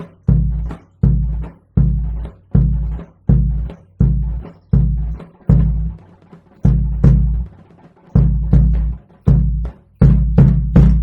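Percussion ensemble playing a steady pattern of heavy, low-pitched drum strokes that ring out, each lasting roughly half a second to a second. Near the end three strokes come closer together and the music stops abruptly, ending the piece.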